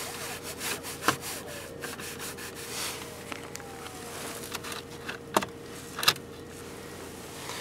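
Plastic dashboard air-vent louvres and adjuster wheel being moved by hand: rubbing and scraping with a few sharp clicks, the loudest two about five and six seconds in, over a steady faint hum.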